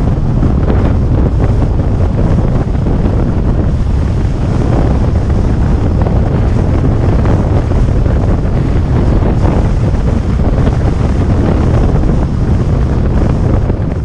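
Steady wind noise buffeting the microphone of a camera on a moving car, over low road rumble from driving at speed.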